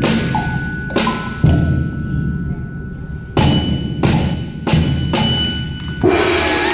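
Student percussion ensemble playing its closing bars: a few widely spaced heavy bass drum and snare hits with bell kit tones ringing between them. About six seconds in the piece ends and applause and cheering start.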